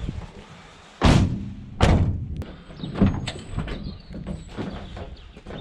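Van doors slammed shut: two heavy bangs a little under a second apart, followed by several lighter thuds and knocks.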